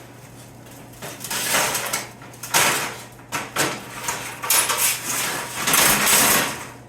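Sheet-metal patch panel being handled and fitted, with a series of irregular metal scrapes and rattles.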